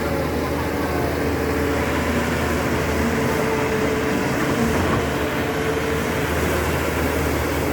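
Backhoe engine running steadily under work, a constant low drone with a held hum.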